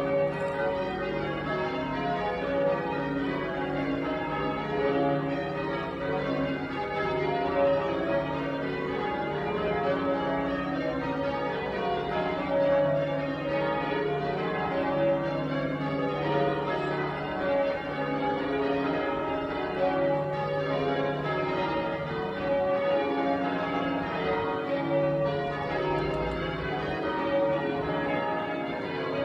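Church tower bells being change-rung: the bells strike one after another in a steady, continuous rhythm, their ringing tones overlapping.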